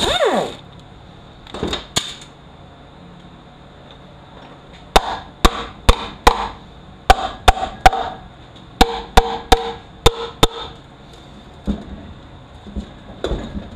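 Red mallet tapping a U250E automatic transmission's oil pan to loosen it: about a dozen sharp strikes over five seconds, some leaving a short ring. At the very start an air tool gives a brief burst and winds down with a falling whine.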